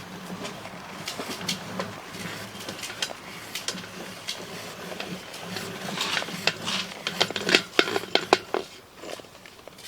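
Scattered clicks and rattles of hard objects being handled, getting thicker and louder about six seconds in, over a faint low steady hum.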